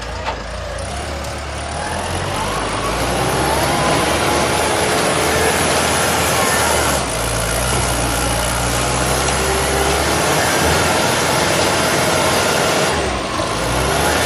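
Self-loading concrete mixer's diesel engine running loudly, its pitch shifting up and down a little, with brief dips in the noise about seven seconds in and again near the end.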